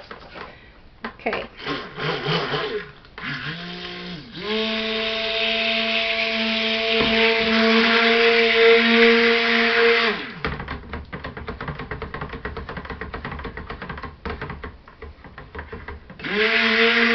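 Stick blender running in a bucket of cold-process soap batter (oils with lye), blending it toward trace. The motor gives a short burst about three seconds in and then a steady hum for about six seconds. It stops, and the blender clicks and knocks against the bucket while it is stirred through the batter, before the motor starts again near the end.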